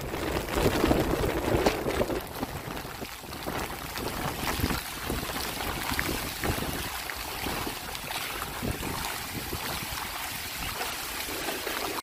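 Hurricane wind blowing in gusts and buffeting the microphone with crackles, over the rush of churned floodwater.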